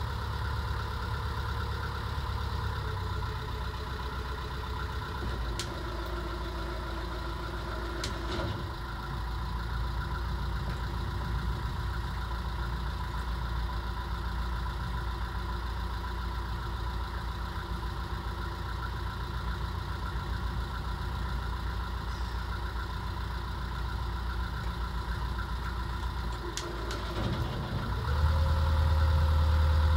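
Hire cruiser's inboard diesel engine running steadily at cruising speed, heard from the helm; the engine note gets louder about two seconds before the end.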